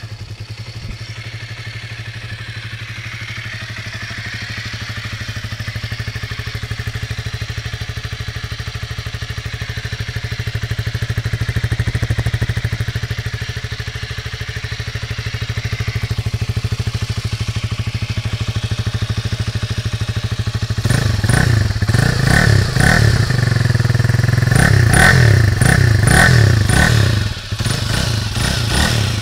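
2005 MZ RT 125's single-cylinder four-stroke engine idling steadily through its stock exhaust. Over the last eight seconds or so it is revved in a series of quick throttle blips, each rising and falling.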